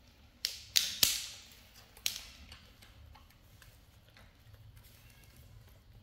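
Four sharp clicks or knocks, each fading quickly: three about a third of a second apart starting about half a second in, and a fourth about a second later. Only faint small sounds follow.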